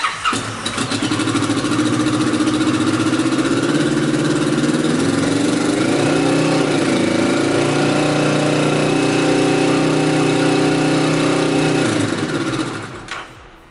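Kawasaki ER6n's 649 cc parallel-twin engine, breathing through a Mivv Suono exhaust with its dB-killer baffle removed, starting, revved up about a second in and held at about 4,000 rpm, then shut off near the end. It is loud, measuring 94.2 dB on a sound level meter at that speed.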